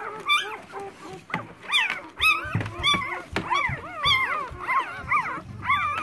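A litter of five-day-old golden retriever puppies squeaking and whimpering: many short, high, rising-and-falling cries overlapping, several a second.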